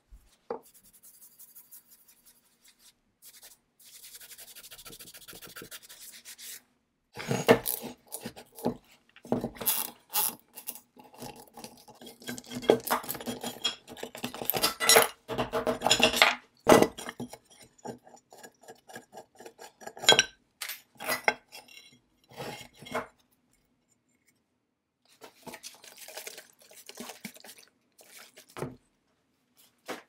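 Mallet blows on the cast-iron crankcase and base plate of a 1929 Maytag Multi-Motor engine, knocking the rusted parts apart. The blows come in dense runs of many strikes from about a quarter of the way in, with a few more past the middle.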